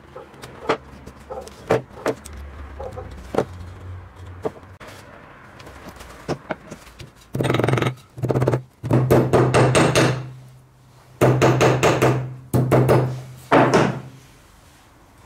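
Hammer on a rusty bench vise's anvil: a few scattered light knocks, then about halfway through several bursts of rapid hammer taps on a small metal piece.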